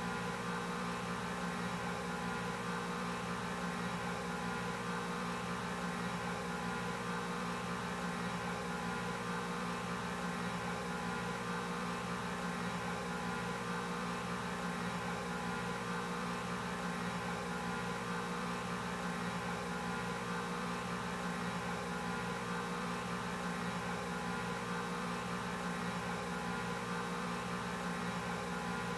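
A steady electronic hum of several held tones over a faint hiss.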